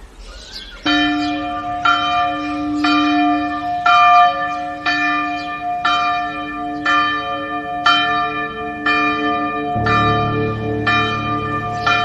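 Bell tones struck about once a second, each ringing on into the next, over a steady low note; a deeper hum joins about ten seconds in.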